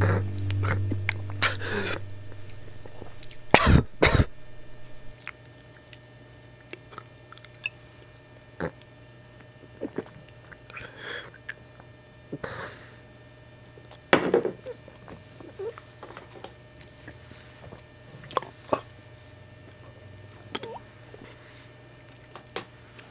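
Close-up mouth and breath noises: scattered sharp clicks and short breathy rustles, irregularly spaced, over a faint steady low hum. The tail of a piece of music fades out in the first few seconds.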